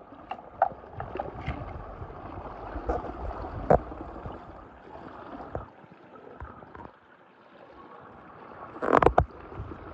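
Shallow water sloshing and gurgling over gravel as plastic toy trains and a toy car are handled and set down in it, with small knocks and splashes in the first few seconds and a louder cluster of knocks and splashing about nine seconds in.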